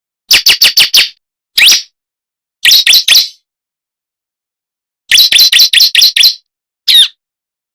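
Bar-winged prinia (ciblek) calls from a lure recording: loud, sharp chirping notes in quick runs, about four, then one, three, a run of about eight, and a last single note, with clean silence between runs.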